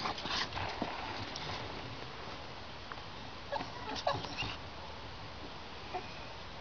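A domestic tabby cat giving a few short meows, bunched about four seconds in, with one faint call near the end. A brief breathy noise comes just at the start.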